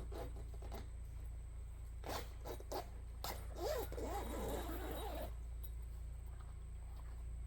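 Zipper on a fabric canopy's door being pulled, with the canopy fabric rustling. There are a few short scrapes about two seconds in, then a longer rasp that stops a little past five seconds.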